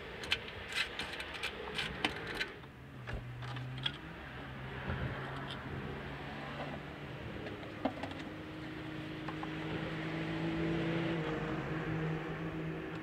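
Sharp metal clicks and taps of hand tools working loose the oil filter housing for the first couple of seconds. Then a steady low mechanical hum with a few held tones comes in from about three seconds and swells slightly toward the end.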